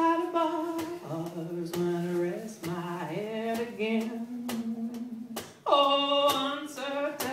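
A woman singing long held notes over a beat of washboard strokes, about two a second. A new, louder phrase begins about two-thirds of the way through.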